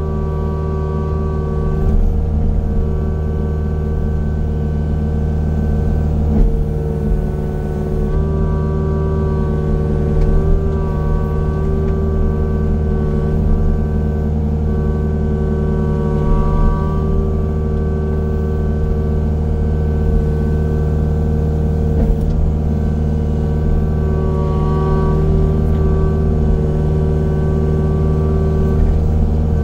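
Engine of a heavy land-clearing machine running steadily, a constant drone with a steady whine above it that shifts slightly a couple of times.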